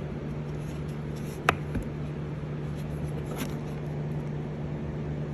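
Handling of a plastic-wrapped cordless tool battery: a single sharp click about a second and a half in and a few faint ticks and rustles later, over a steady low room hum.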